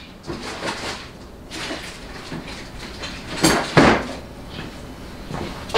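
Off-camera handling: scattered rustling and light knocks of parts being picked up, with two loud clunks about three and a half seconds in.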